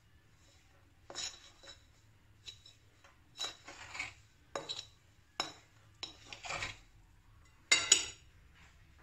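A metal utensil scraping and clinking against a glass mixing bowl as flour is stirred into a crumbly dough, in irregular strokes, with the loudest clink near the end.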